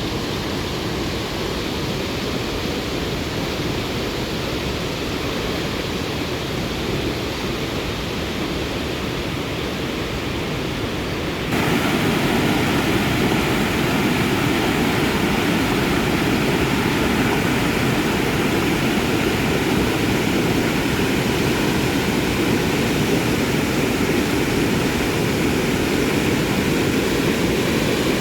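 Fast-flowing stream water rushing steadily. About eleven seconds in, the rush jumps abruptly to a louder, brighter level.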